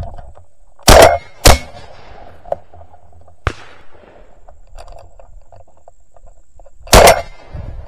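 Shotgun fired at doves passing overhead: two shots about half a second apart about a second in, a quieter sharp crack a couple of seconds later, and a third loud shot near the end.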